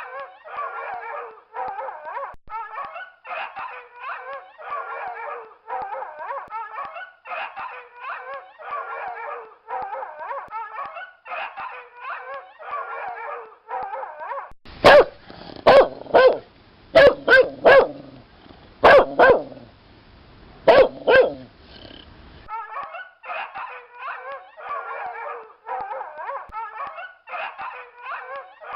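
A dog barking and yipping in quick repeated calls, about two a second. About halfway through comes a run of louder, sharper single barks lasting several seconds, and then the quick calls resume.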